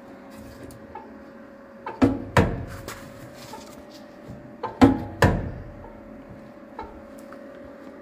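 Two pairs of sharp metal clunks on the truck's sheet-steel door and cab, each ringing briefly, over a steady hum.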